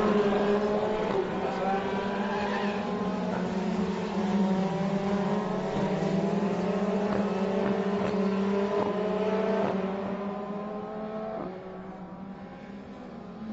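Formula Renault 2.0 single-seaters' four-cylinder engines at high revs. The pitch climbs through the gears and drops sharply at each of several upshifts. The sound fades somewhat about ten seconds in.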